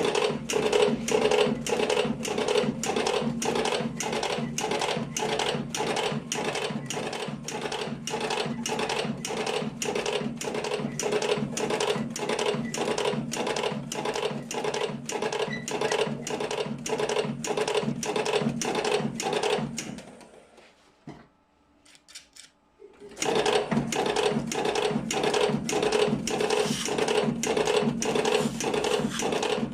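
Remak R55 automatic electric cigarette-rolling (tobacco-filling) machine running, a steady mechanical clatter of about two strokes a second over a motor hum. About two-thirds of the way through it drops to near silence for about three seconds, then starts again at the same rhythm.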